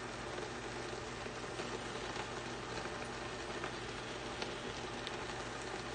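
Pan of shrimp paella sizzling gently on an induction hob, its liquid fully absorbed into the rice: a steady soft crackle with a few faint ticks.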